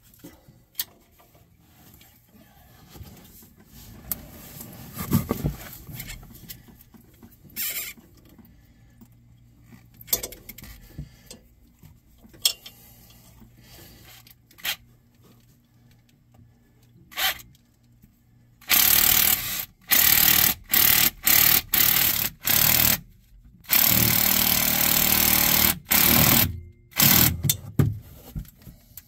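Small clicks and knocks of hand work on hoses and clamps, then, about two-thirds of the way in, a string of loud bursts from a motor-driven tool, each about a second long with short gaps, and one longer run of about two seconds.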